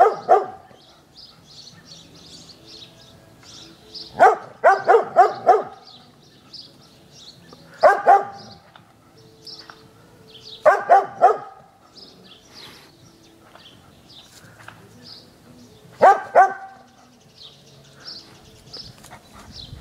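A dog barking at balloons on a garden fence, in five bursts of two to four barks a few seconds apart.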